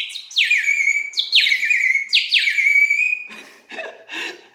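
Terracotta water whistle, a clay bird whistle partly filled with water, blown in a run of short warbling calls. Each call is a quick downward swoop into a bubbling, trilling note, like birdsong. The calls stop a little over three seconds in.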